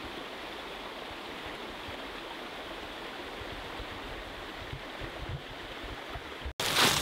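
Steady, even rushing of running water from a stream, starting and stopping abruptly.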